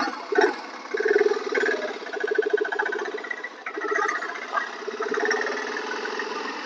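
BSA Gold Star 650's single-cylinder engine running through its stock exhaust, with the baffle still fitted. Its level swells and eases about four times, as though blipped. The sound is smooth and not very bassy.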